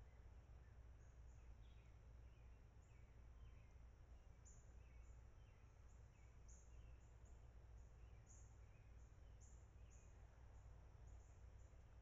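Near silence: faint woodland ambience with scattered short, high-pitched chirps and a steady low hum underneath.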